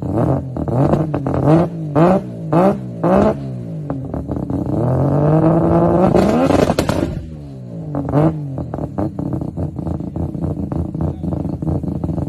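Turbocharged rotary engine revved in about five quick blips, then held up at higher revs for about two seconds before dropping back sharply. It gives one more blip and settles into a choppy idle.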